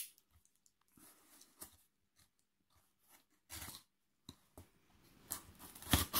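Hands handling a cardboard shipping box: scattered faint taps, scrapes and crinkles of cardboard and packing tape, more frequent and loudest near the end.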